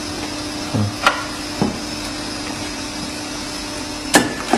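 Steady low machine hum over background noise, broken by a few sharp clicks and knocks, the loudest near the end.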